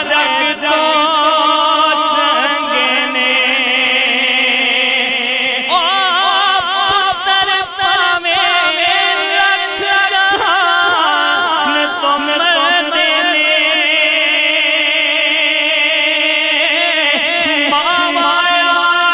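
A man singing a Punjabi devotional song solo into a microphone, drawing out long, wavering notes with melodic turns.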